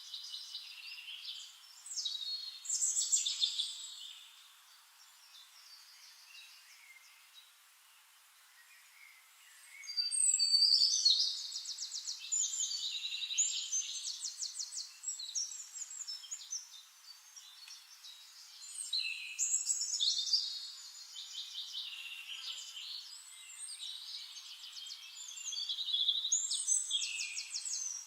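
Songbirds singing: about four songs of quick, high, trilled notes with quieter gaps between them, the longest and loudest starting about ten seconds in.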